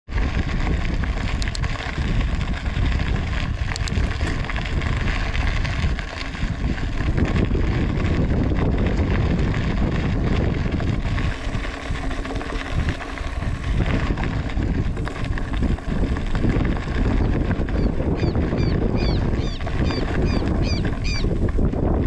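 Steady wind buffeting the microphone of a rider on the move, a dense low rumble with no clear engine note. Near the end comes a quick run of short, high chirps.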